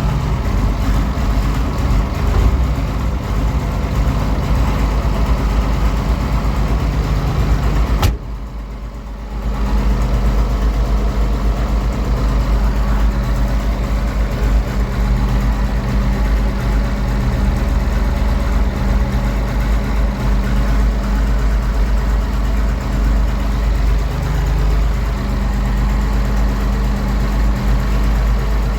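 Tractor engine idling steadily, with a brief dip in the sound about eight seconds in.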